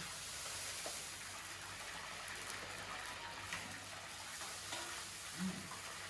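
Meat kebab skewers frying in hot oil in a cast-iron kazan: a steady sizzle, with a few short sounds of metal utensils working in the pot.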